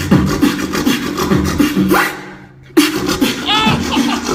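Solo human beatboxing in a fast, technical routine of kick, snare and bass sounds. About two seconds in a rising sweep leads into a short break of near silence, the beat cuts straight back in, and quick warbling whistle-like pitched sounds follow near the end.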